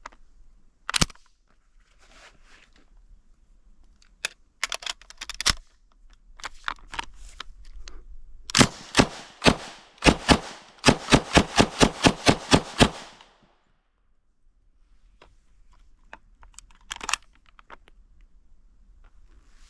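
Semi-automatic Thompson M1928A1 submachine gun in .45 ACP being fired: a single shot about a second in, then a quick string of about fourteen shots, roughly three a second, in the middle. Lighter clicks come between them.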